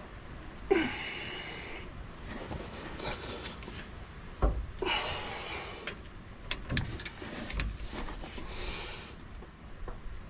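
A man straining hard, with short grunts and heavy breaths, while torquing a differential pinion nut to set the pinion bearing preload. A few sharp clicks and knocks of tools come in the second half.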